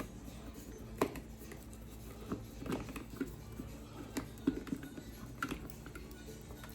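Scattered light clicks and taps of tools and driver hardware being handled during reassembly, the sharpest about a second in and again past the middle, over a steady low hum.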